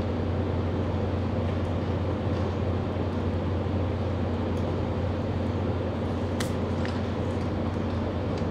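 Steady low machine hum, with a few light clicks as the wiring at the base of the air conditioner is handled.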